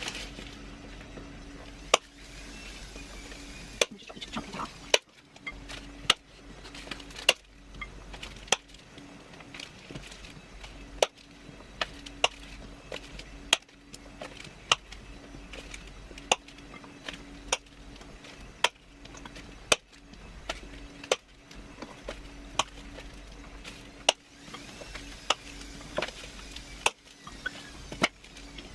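Kitchen knife chopping a bar of white chocolate into chunks: sharp, irregular knocks of the blade going down, roughly one a second.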